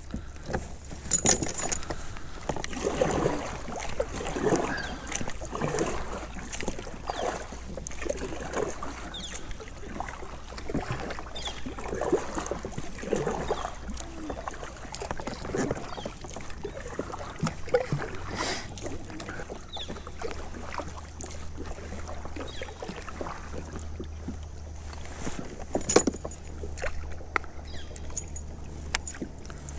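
Kayak on moving water: irregular splashing and knocking against the hull, with small clicks and rattles, over a steady low rumble.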